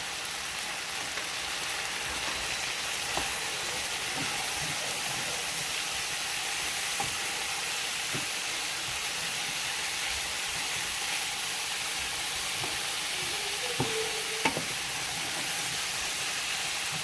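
Chicken thighs and julienned vegetables sizzling steadily in oil in a hot sauté pan. A few light clicks of a utensil stirring against the pan are scattered through it.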